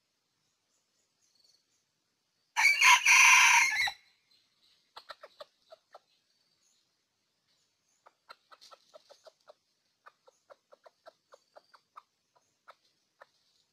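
Red junglefowl cock giving one short, clipped crow about two and a half seconds in, followed by a long run of soft, short clucks at about three a second.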